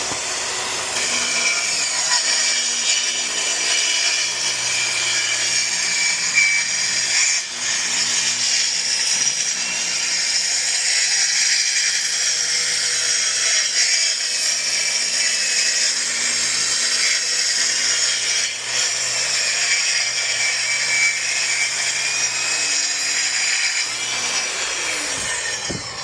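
Track saw cutting wood in one long, continuous pass, its blade whine steady under load. The motor winds down near the end.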